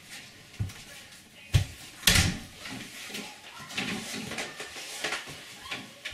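A front door shutting with a heavy thump about two seconds in, among footsteps and small knocks.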